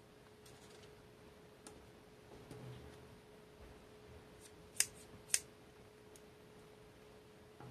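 A pair of scissors with metal blades and blue plastic handles snipped shut in the air twice, two sharp clicks about half a second apart, over a faint steady hum. Before that, a soft thud of paper being handled.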